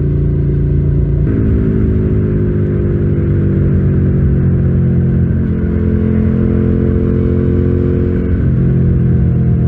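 Suzuki Gladius 650's V-twin engine running while the motorcycle is ridden along the road. Its pitch sags slowly and shifts abruptly about a second in, again past halfway and near the end.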